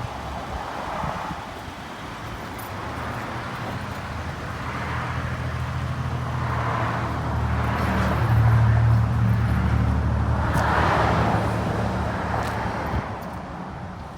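A motor vehicle going by: a low engine hum with tyre and road noise that grows louder over several seconds, peaks in the middle and fades away near the end.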